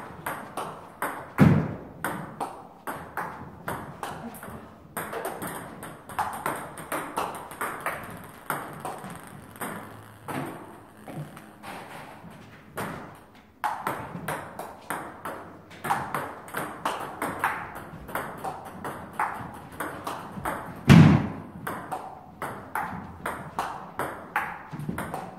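Table tennis rally: the celluloid-type ball clicks sharply off the paddles and the table in a quick, steady rhythm of several hits a second, with short breaks between rallies. There are two heavier thumps, one just after the start and one near the end.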